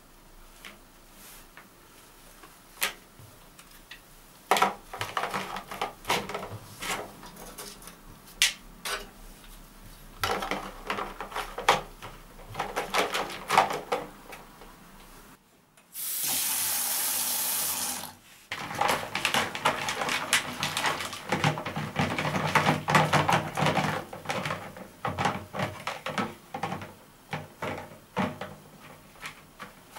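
Gloved hands swishing and scrubbing small metal parts of a tape-head demagnetizer in soapy water in a plastic basin: splashing, sloshing and light knocks of the parts. About 16 s in, a tap runs into the basin for about two seconds.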